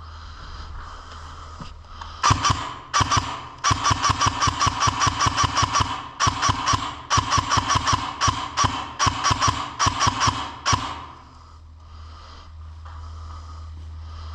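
Airsoft gun firing full-auto in several bursts of rapid shots, a fast mechanical rattle from about two seconds in until nearly eleven seconds in.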